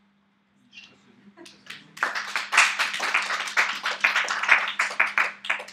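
Audience applauding: a few scattered claps at first, then full clapping from about two seconds in that dies away near the end.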